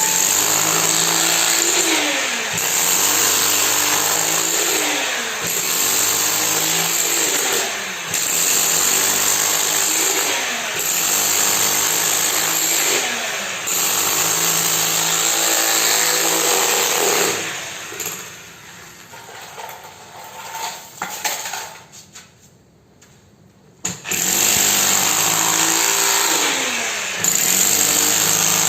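Concrete-pouring machine running loud in a regular cycle, its pitch dipping and recovering about every two and a half to three seconds. About two-thirds through it dies away to near silence for a couple of seconds, then starts again at full level.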